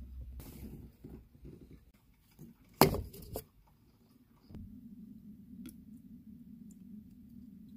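A sharp knock about three seconds in, with a smaller one half a second later, then a steady low hum that starts a little after the middle.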